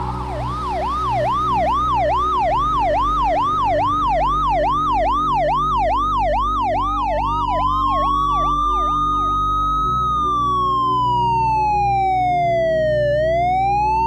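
Electronic police siren in yelp mode, quick rising-and-falling sweeps about three a second, which slow about seven seconds in into a wail: one long rise, one long fall, then a rise again near the end. A steady low hum runs underneath.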